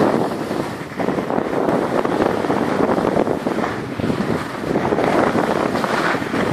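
Wind rushing over the microphone of a camera carried downhill by a skier, mixed with the hiss of skis sliding on packed snow; the noise rises and falls every second or two.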